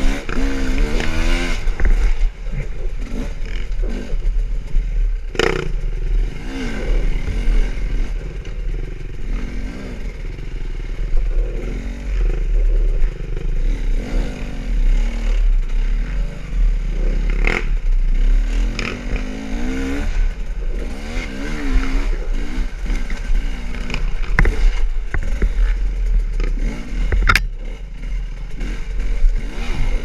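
Sherco SE-R 250 two-stroke enduro bike's engine revving up and down as it is ridden over rough trail, with wind rumble on the helmet microphone. Several sharp knocks and clatters from the bike over rough ground.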